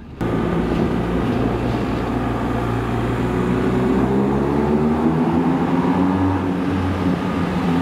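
BMW R1250 GS Adventure's boxer-twin engine running under way through a rock tunnel, its pitch slowly rising and then easing off again.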